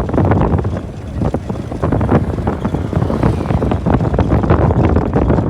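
Wind buffeting the microphone: a loud, irregular low rumble that swells and dips.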